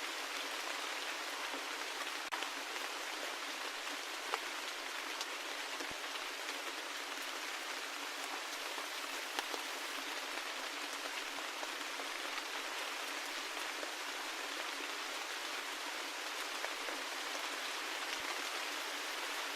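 Steady rain: an even hiss of falling rain with scattered individual drops ticking sharply now and then.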